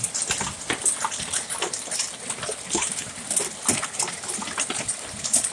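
Big hailstones striking hard surfaces: irregular sharp cracks and knocks, several a second, over a steady hiss of falling hail.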